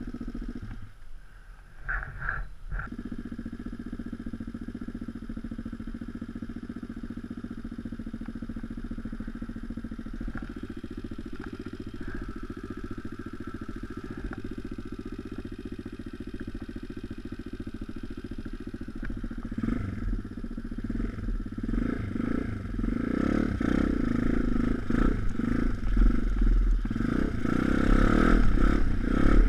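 Pit bike's 160cc YX single-cylinder four-stroke engine idling steadily, then from about two-thirds through revved and ridden over a rough dirt path, getting louder with knocks and rattles from the bike.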